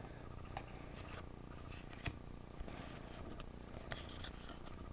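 Faint, scattered clicks and light rubbing of trading cards being handled and sorted, over low room noise.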